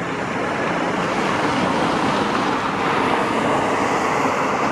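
Steady rushing noise of road traffic passing by, an even wash of tyre and engine sound that stays level throughout.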